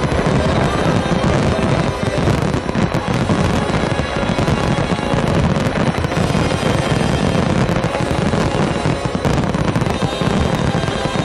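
Dense barrage of aerial firework shells bursting without a break: overlapping booms and crackling in a finale-style salvo, with the show's music playing underneath.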